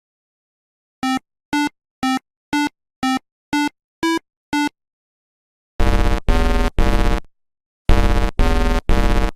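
Synthesized electronic sounds: eight short beeps at a steady pitch, about two a second, then two groups of three loud buzzy blasts.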